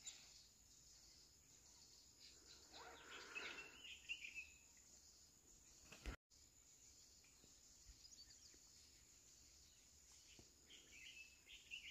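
Near silence with faint birdsong: a few short chirps about three seconds in and again near the end.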